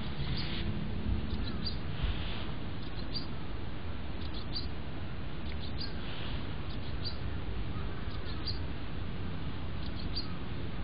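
Small birds chirping: short, high chirps about once a second, over a steady low rumble.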